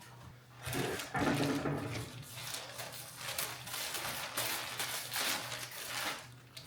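Crinkling and rustling of the sealed plastic wrapping around a new car headlining as it is handled and opened, in a series of irregular bursts. A steady low hum sits underneath.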